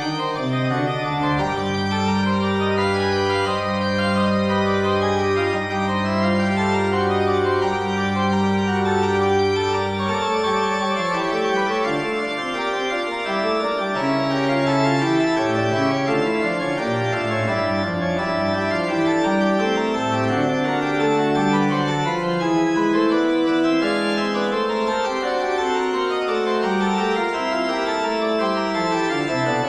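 Organ music: a held low chord for about the first ten seconds, then notes moving in several lines over one another.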